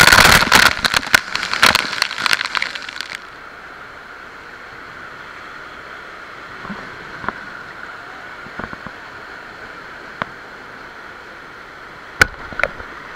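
Water spray spattering hard onto the camera for about three seconds, then the steady, muffled rush of river rapids with a few scattered knocks.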